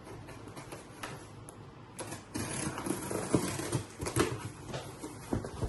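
Cardboard shipping box being opened by hand: the packing tape slit and the flaps pulled apart, a run of scrapes, rustles and sharp knocks of cardboard that gets louder and busier from about two seconds in.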